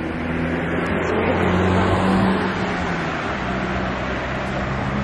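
Car engine running on the street, a steady low drone over road noise that shifts in pitch a couple of times.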